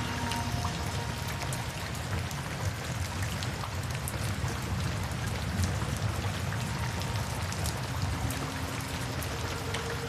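Steady rain falling, with many small individual drop ticks over a constant hiss. Soft held music notes fade out just after the start and return near the end.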